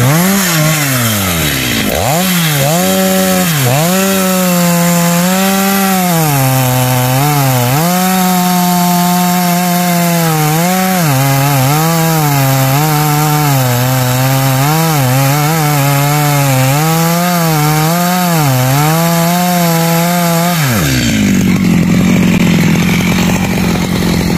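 Husqvarna 365 two-stroke chainsaw running at high revs while cutting a tree trunk, its pitch dropping and recovering over and over as the chain loads in the cut. About three-quarters of the way through the sound changes abruptly to a rougher, noisier engine sound with a steadier low tone.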